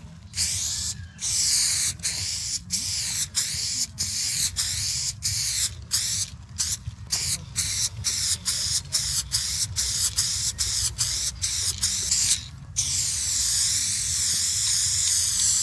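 Aerosol spray paint can hissing as paint is laid onto a wall, in quick short sprays with brief breaks about twice a second, then one longer unbroken spray near the end.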